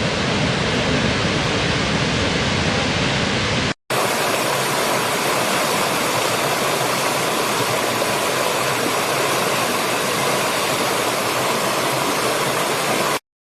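Waterfall: steady rushing of falling water. It cuts out for a moment about four seconds in, comes back brighter and hissier, and stops abruptly just before the end.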